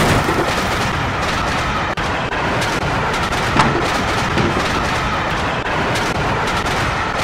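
A steam train running at speed: a loud, dense, steady clatter and rumble, with one sharper crack about three and a half seconds in.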